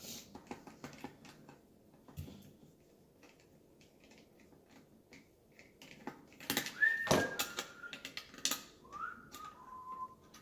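Small clicks and taps of parts being handled on a garbage disposal, with a louder clatter a little past halfway. Near the end a few whistled notes step down in pitch.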